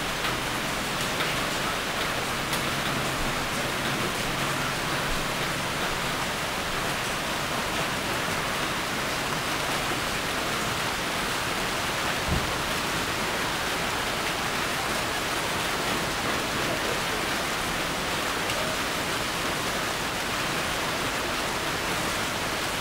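Steady rain falling, an even hiss of drops with no letup, and one soft low knock about halfway through.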